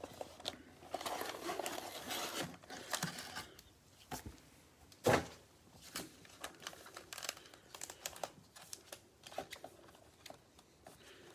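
Plastic wrapping crinkling and tearing as a trading-card box is opened, with a sharp snap about five seconds in, then scattered light clicks and rustles of the packs being handled.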